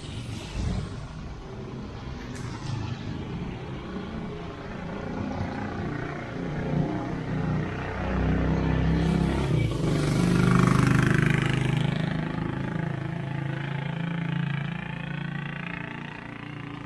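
Street traffic: a motor vehicle passes close by, its engine hum and tyre hiss growing loudest about eight to twelve seconds in, then fading.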